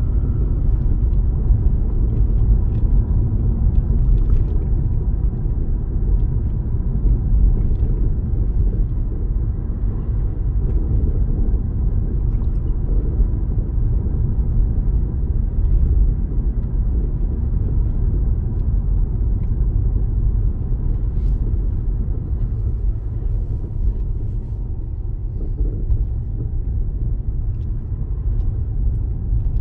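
Steady low rumble of a car's engine and tyres, heard from inside the cabin while driving along a road.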